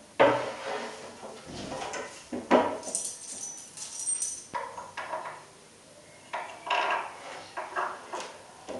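Wooden shelf boards knocked and set down on a tile floor and against a metal frame, with a sharp knock right at the start and another about two and a half seconds in. Small metal screws clink about three seconds in, followed by more knocks and rubbing as boards are shifted.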